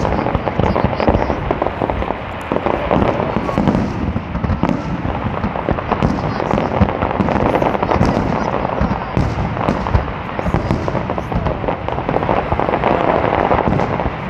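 Fireworks display going off: a dense, continuous barrage of bangs and crackles with no pause.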